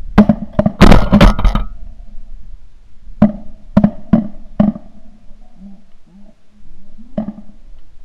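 Shotgun volley from several hunters shooting at flying pigeons: a rapid burst of overlapping shots in the first second and a half, four more shots between about three and five seconds in, and a last shot near the end.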